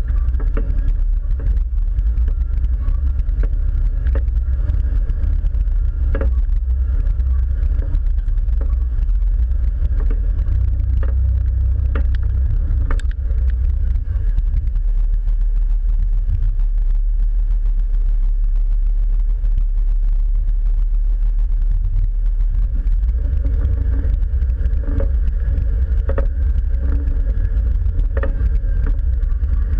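Jeep driving slowly over a rocky trail: a steady low engine rumble with occasional sharp knocks.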